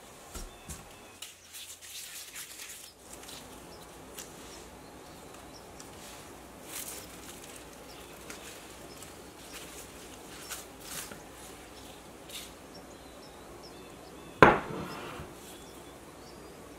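Soft, scattered handling clicks and rustles as dough balls are set out on the work surface, then one sharp knock with a brief ring near the end: a glass mug being set down on the surface.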